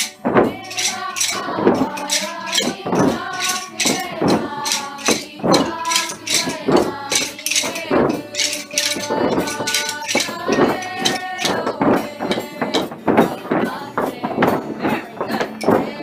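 A group of children singing a tī rākau (Māori stick game) song while clacking short wooden rākau sticks together and on the floor in a steady rhythm.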